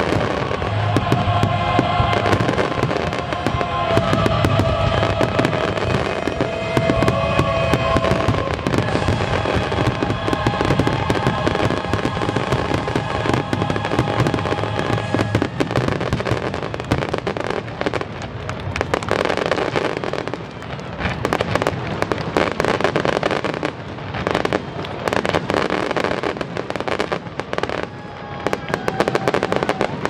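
Fireworks bursting in a dense barrage of shell bangs and crackle, with the show's soundtrack music playing along through about the first half. Later the music drops back and separate bangs stand out, thinning somewhat near the end.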